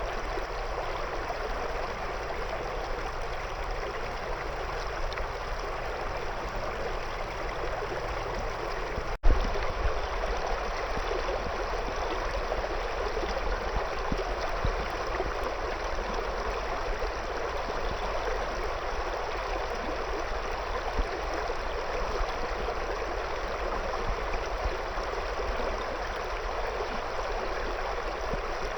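River water running and gurgling steadily over stones. About nine seconds in there is a momentary gap in the sound and a sharp click.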